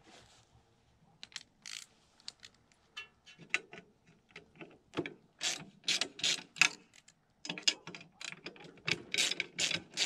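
A hand tool working loose a tight screw on a furnace's metal burner assembly: a run of short clicks and scrapes, sparse at first and busier from about three seconds in.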